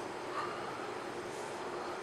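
Steady room noise with a faint hum, and a small click about half a second in.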